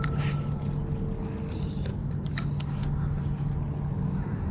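A steady low engine hum, with a few light clicks over it. The hum fades out shortly before the end.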